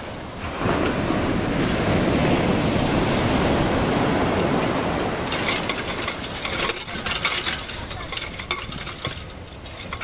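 Surf breaking on the beach and washing around the hull of a grounded sailing yacht: a wave's rush swells about half a second in, then gives way to crackling, hissing foam that fades near the end.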